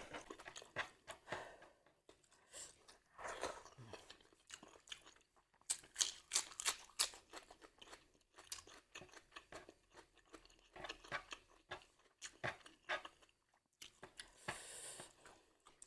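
A person chewing food close to the microphone, with irregular crisp crunches and mouth clicks throughout and a short hissy stretch near the end.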